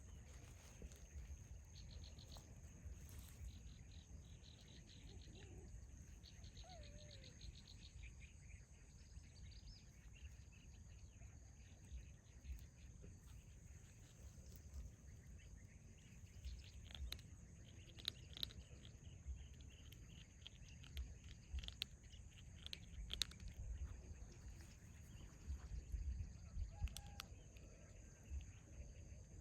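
Faint outdoor ambience: insects keep up a steady high drone, with trains of fast high pulses and scattered short bird-like chirps over a low rumble.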